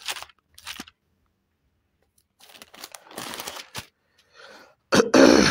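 Pages of a Bible being turned: a few soft paper crackles, then a longer rustle about halfway through. Near the end comes a short, louder vocal sound.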